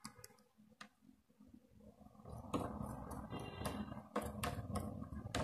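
Small screwdriver working a terminal screw in a plastic screw-terminal connector block, with wires being handled. Nearly quiet at first, then from about two seconds in a run of light clicks and scraping.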